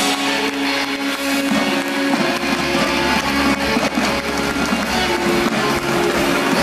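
Music with guitar and long sustained notes accompanying the aerial act.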